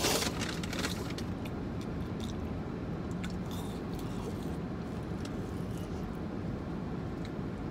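Steady low rumble inside a parked car's cabin, with a few faint clicks and rustles as fries are picked out of paper packaging and eaten.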